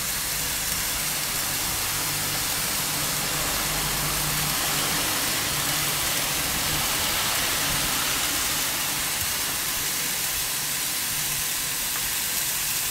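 Steady rushing hiss of an electric fan blowing hard across the grill, mixed with the sizzle of cevapcici frying on a hot electric grill grate.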